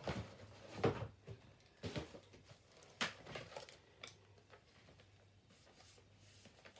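Light knocks and rustling of things being picked up and moved on a desk, about five separate knocks in the first four seconds. After that only a faint steady low hum remains.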